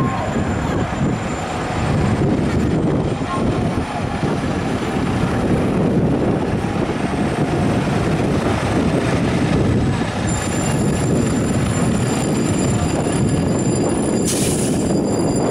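Fire engine's diesel engine running and pulling out of the firehouse, a steady heavy rumble. A short hiss comes near the end.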